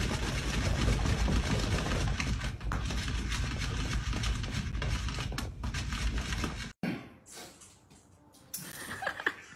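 A cat clawing and pawing at a clear plastic enclosure wall, making rapid scratching and rattling of the plastic. It cuts off suddenly about seven seconds in, leaving faint scattered clicks and knocks.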